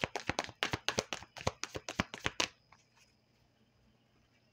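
A tarot deck being shuffled by hand in a quick run of card clicks and slaps, as cards are mixed to draw a clarifier card. The shuffling stops about two and a half seconds in.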